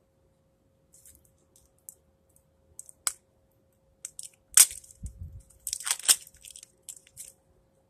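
Wrapping being torn and crinkled off a new roll of duct tape: scattered sharp crackles and snaps, loudest about four and a half seconds in and again around six seconds.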